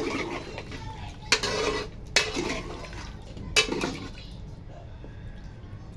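A steel ladle stirring chicken and potato curry in a metal pot, the broth churning as the ladle scrapes and clanks against the pot three times, then the stirring quietens.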